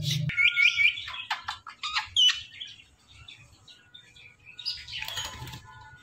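Indian ringneck parakeet calling: a quick run of three high chirps, then clicks and one sharp call about two seconds in. A short noisy rustle follows near the end.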